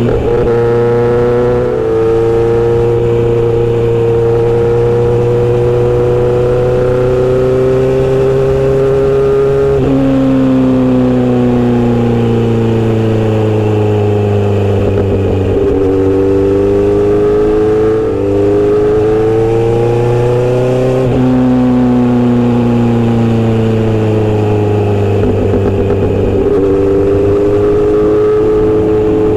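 Inline-four motorcycle engine and exhaust running loud under way. The engine note climbs and sags with the throttle, with a few sudden changes in pitch.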